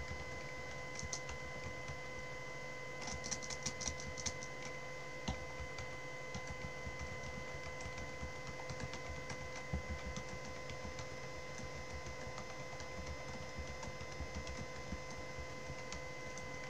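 Computer keyboard typing: scattered key clicks with a quick run of keystrokes a few seconds in, over a steady faint whine.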